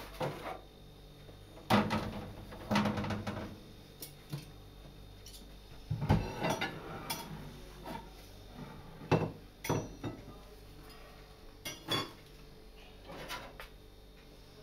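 Metal roasting tray and kitchen utensils clattering on a gas cooker and countertop: a series of separate knocks and short scrapes, loudest about two seconds in and again about six seconds in.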